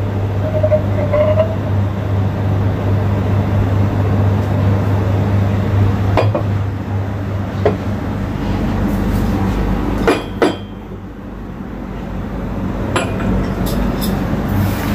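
Ceramic cups and saucers clinking a few times as they are handled and set down on a counter, the loudest pair of clinks about ten seconds in, over a steady low hum and hiss.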